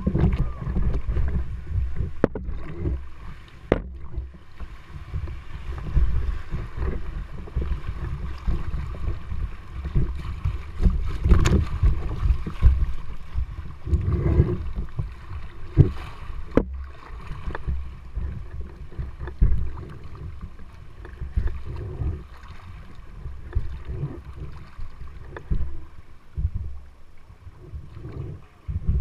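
River water splashing and gurgling against the hull of an inflatable kayak as it moves downstream, with wind rumbling on the microphone and scattered short knocks.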